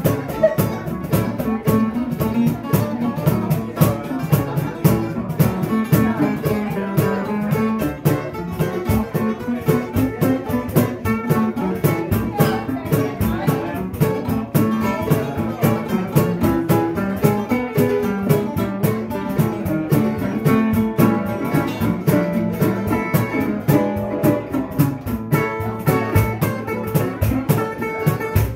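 Small acoustic band playing an instrumental: plucked guitars, including a metal-bodied resonator guitar, over a steady cajon beat.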